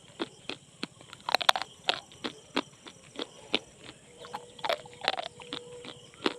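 Slate pencils being bitten and chewed: an irregular run of sharp, dry crunches, about two or three a second, denser about a second and a half in and again near five seconds.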